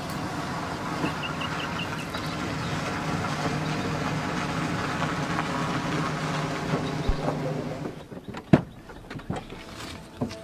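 A car driving up on a dirt road, its engine and tyres running steadily, then stopping about eight seconds in. A sharp click and a couple of knocks follow as a car door is opened.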